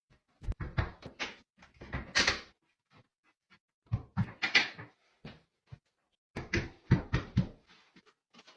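Hard objects knocking and clattering in three bursts, each about a second long, with a couple of short scrapes among them.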